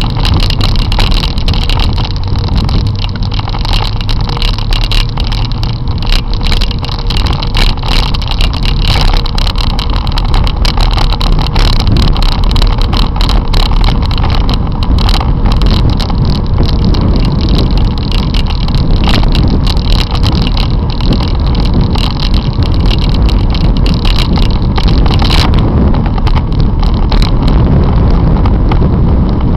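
Loud, steady wind and road rush on a bicycle-mounted camera's microphone while riding in traffic, with frequent rattling clicks throughout. The low rumble grows heavier from about twelve seconds in.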